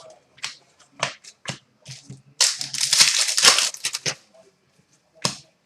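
Trading cards and their wrapper being handled during a pack break. There are a few sharp card flicks and snaps, then a dense crinkling rustle lasting nearly two seconds from about two and a half seconds in, and one more snap near the end.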